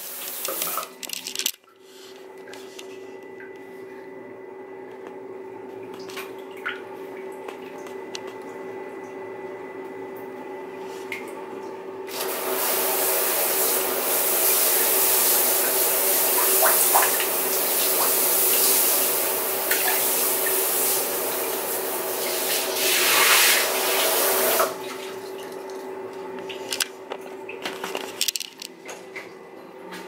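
Water running through a handheld shower head, a steady hiss with a constant hum under it. About twelve seconds in the spray becomes much louder and hissier, and it drops back about twenty-five seconds in.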